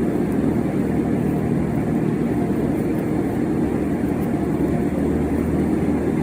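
A steady low rumbling hum of background noise, unchanging, with no distinct clicks or knocks.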